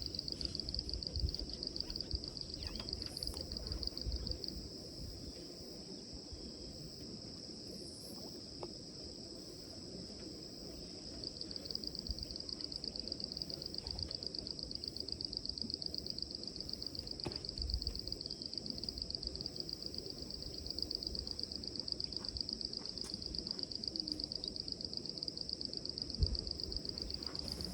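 An insect trilling: a steady, high-pitched, rapidly pulsing song that stops for several seconds about a sixth of the way in, then starts again. A low background rumble sits underneath.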